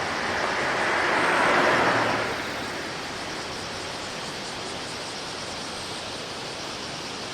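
A passing vehicle swells up and fades away within the first couple of seconds, leaving a steady hiss of outdoor noise.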